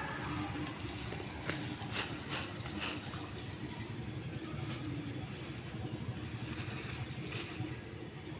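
Green amaranth plants rustling as they are pulled up by hand and handled, with a few sharp clicks of stems and leaves about two to three seconds in, over a steady low rumble.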